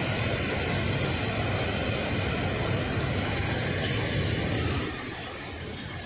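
Large waterfall in heavy, muddy flow, rushing steadily: a continuous noise of falling water that drops in level about five seconds in.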